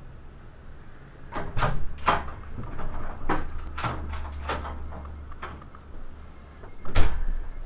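Irregular knocks and clicks around a panelled wooden door, about eight of them spread over several seconds, with a louder thump near the end, over a low rumble.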